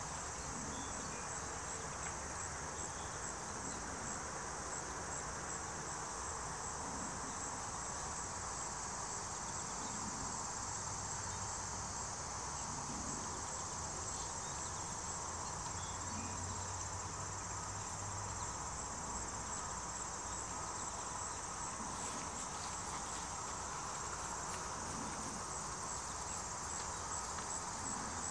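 A chorus of singing insects: a steady high-pitched drone with a regular pulsing trill along its top.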